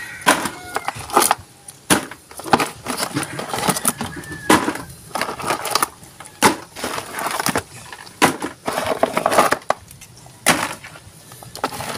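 Irregular clatters and knocks of fish and blue crabs being handled and shifted in a black plastic tub.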